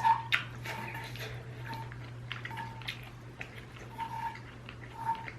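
Close-up eating sounds of ramyun: a run of short wet mouth clicks and smacks from chewing, over a steady low hum.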